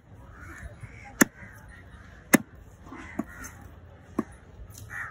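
A large fish-cutting knife chops through red fish flesh and bone onto a wooden log block. There are four sharp chops about a second apart, and the second is the loudest.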